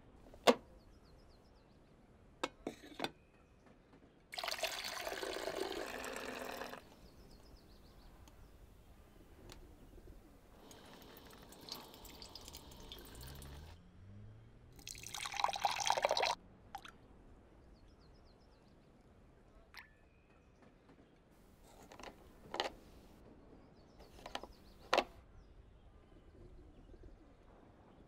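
Kitchen sounds from a filter coffee machine: a sharp click as its lid shuts just after the start, a few small clicks, then several spells of liquid pouring, the last being coffee poured into a glass. A few more sharp clicks come near the end.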